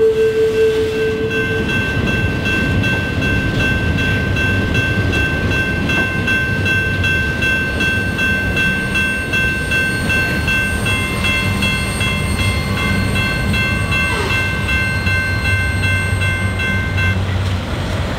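Freight train boxcars rolling past, a steady rumble of wheels on rail, while a grade-crossing bell rings steadily with a high, evenly pulsing tone. The bell stops near the end as the last cars clear the crossing.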